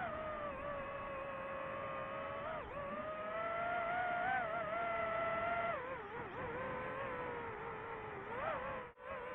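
FPV quadcopter's motors and propellers whining, the pitch rising and falling with the throttle: higher through the middle, dropping about six seconds in, with a quick rise and a brief cut-out near the end.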